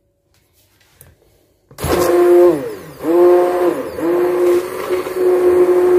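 Handheld immersion blender switched on about two seconds in, running with a steady whine while it blends milk into cake batter. Its pitch sags and recovers twice as the blades churn the mixture.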